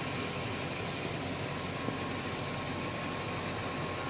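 Steady rushing noise of a fire hose at work: the water jet and the fire engine's pump running without a break.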